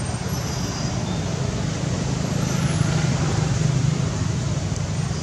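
Steady low rumble of road traffic, swelling slightly about three seconds in.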